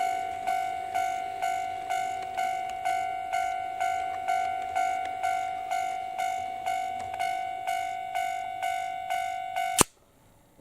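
Electronic warning bell of a KATO model automatic level crossing ringing in an even ding-ding, about two strokes a second, then cutting off abruptly with a click near the end as the crossing switches off.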